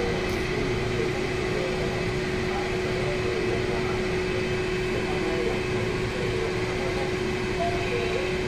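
Steady hum over a hiss, with one constant low tone: a kitchen fan or similar appliance running while a pot cooks.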